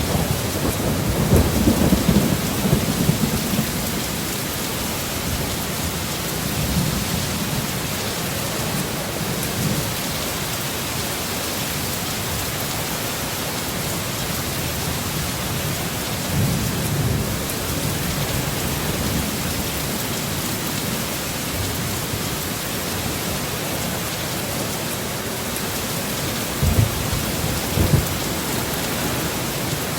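Heavy rain hissing steadily, with thunder rumbling low about a second in and again midway, and two short, louder thumps near the end.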